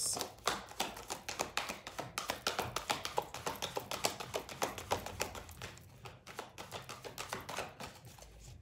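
Oracle card deck being shuffled overhand by hand: quick, dense clicking and flicking of cards against each other, thinning out about six seconds in.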